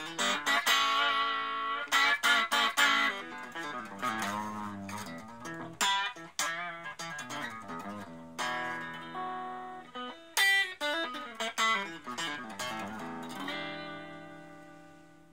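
Electric guitar played through a Raizin Sound "60s Vintage Tweed" effects pedal: a phrase of picked single notes and chords with bends and vibrato, ending on a chord left to ring out and fade.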